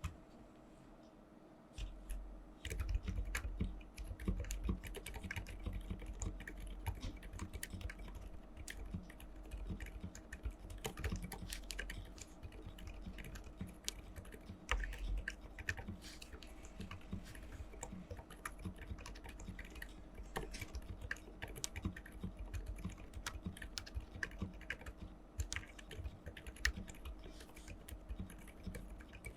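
Typing on a GK68 hot-swap mechanical keyboard fitted with silent Alpaca linear switches: a quick, uneven run of keystrokes that starts about two seconds in.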